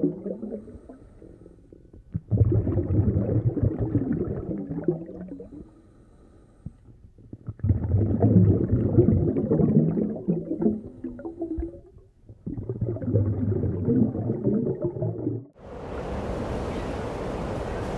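Underwater submarine sound effect: a deep rumble that swells and fades three times, each swell a few seconds long. Near the end it cuts suddenly to the steady wash of ocean surf.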